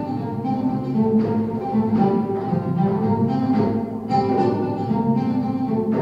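Oud and frame drum playing together: a plucked oud melody over hand strokes on the frame drum.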